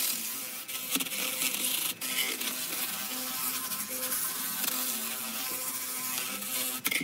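Electric long-shaft rotary tool with a disc spinning against a weathered wooden stump, grinding off the rotten outer surface. A steady motor whine comes with a hissing scrape, with brief dips as the disc lifts off the wood.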